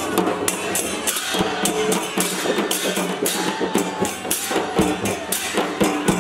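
Music with a quick, steady percussion beat of sharp hits and a held melody line over it.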